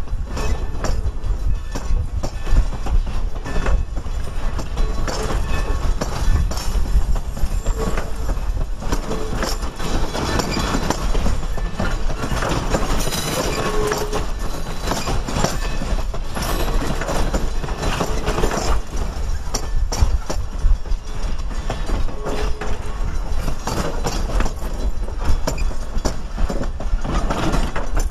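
Passenger coaches of a steam-hauled train rolling slowly past close by: a steady low rumble with wheels clicking over the rail joints, and a few short wheel squeals.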